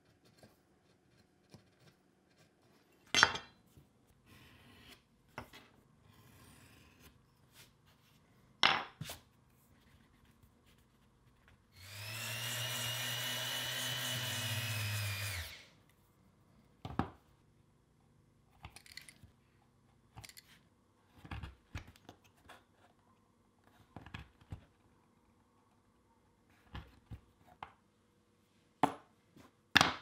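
Small handheld power tool running steadily for about three and a half seconds, past the middle, spinning up at the start and winding down at the end. Sharp knocks and clicks of tools handled on a wooden bench come before and after.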